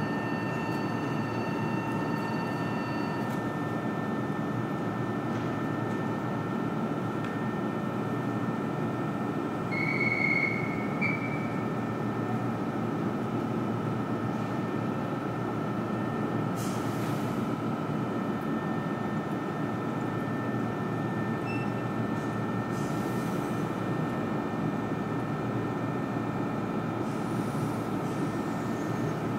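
Meitetsu 1200 series electric train standing at the platform with its equipment running: a steady hum with several held whining tones. A short high whistle sounds about ten seconds in, and a few soft hisses come later.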